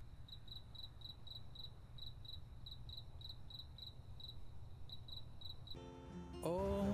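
Crickets chirping steadily and quietly, about four chirps a second, as night ambience. Near the end a held chord comes in, then a rising sweep.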